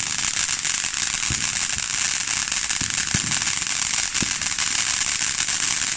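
Fireworks going off in a dense, continuous crackle, with a few deeper bangs standing out at intervals.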